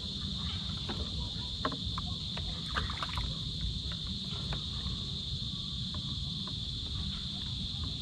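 A steady, high chorus of night insects, with scattered light clicks and knocks in the first half and a low rumble underneath.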